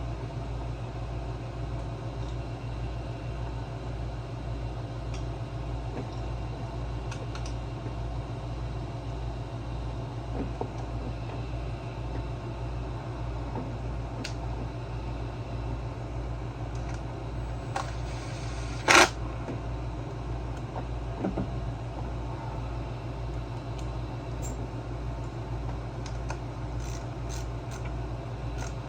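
Steady low, pulsing background hum with scattered light clicks of parts and tools being handled, and one sharp, loud clack about two-thirds of the way in.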